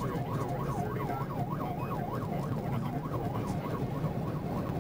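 Police car siren on a fast yelp, its pitch sweeping up and down about four times a second, a little fainter in the second half, over engine and road noise from the pursuing patrol car.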